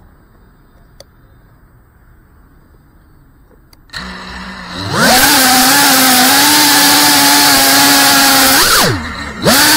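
The brushless motors and propellers of a 3.5-inch FPV quadcopter, heard from its onboard camera. After a few seconds of faint background the motors spin up with a steady whine about four seconds in, rise in pitch for takeoff and hold steady. Near the end the pitch swoops up, drops away almost to nothing, then climbs again.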